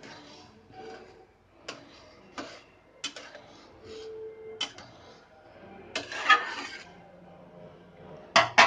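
Metal spatula stirring lentils in a steel kadai, with scattered light clinks and a scrape against the pan.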